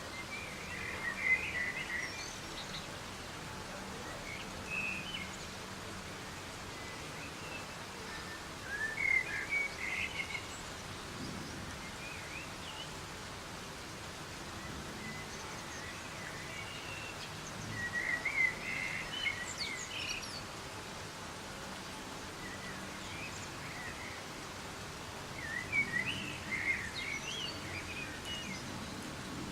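Soft, steady rain hiss in a forest, with a bird singing short chirping phrases four times, roughly every eight seconds.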